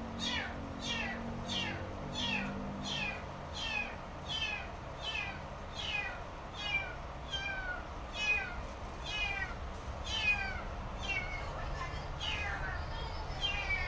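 A small animal calling over and over: short high peeps that fall in pitch, about two a second.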